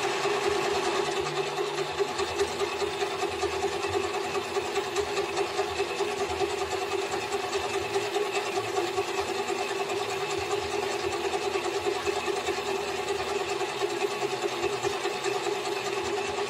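Small metal lathe running steadily, spinning a steel brake caliper piston from a Honda Transalp while an aluminium dish-scrubbing pad is held against it to polish off the built-up deposits: a steady motor hum with a fine scrubbing rasp over it.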